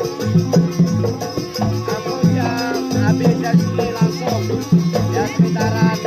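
Live jaranan gamelan accompaniment: low drum and gong strokes keep a steady, even beat under rattling percussion, with a wavering melodic line above.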